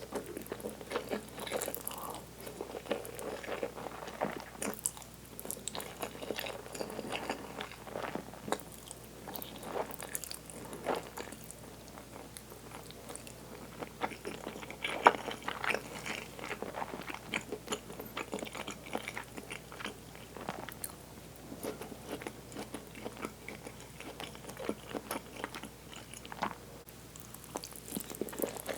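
A person chewing food close to the microphone, with a dense, irregular run of wet mouth clicks and small crunches; one sharper click stands out about halfway.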